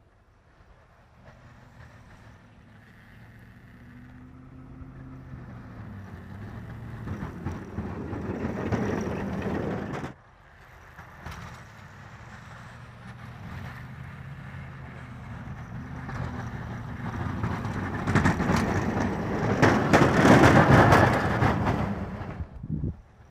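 Pickup truck engine working under load while its V-plow pushes snow, with the blade scraping and snow rushing off it. It grows louder as the truck comes closer, breaks off suddenly about ten seconds in, then builds again. The scraping and rushing snow are loudest near the end.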